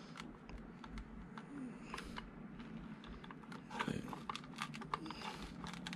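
Light, irregular plastic clicks and taps as a small 1/24-scale Axial Ford Bronco RC truck is picked up, tilted and handled while its body is felt over for clips, with a slightly louder cluster of clicks about four seconds in.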